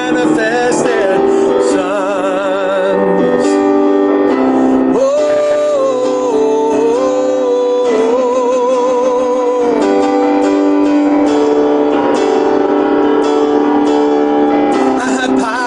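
A man singing a worship song over instrumental accompaniment, holding long notes with a wavering vibrato.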